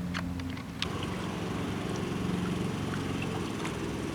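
A steady low mechanical hum, with a click a little under a second in after which the hum changes.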